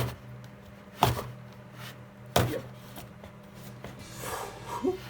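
A small plastic toy sword jabbing at a cardboard box to cut it open: three sharp knocks about a second apart, then a soft scrape near the end.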